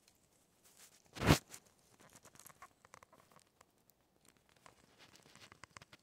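Chipmunk cracking and husking sunflower seeds close by: a scatter of small crunchy clicks and crackles, with one loud sharp knock a little over a second in.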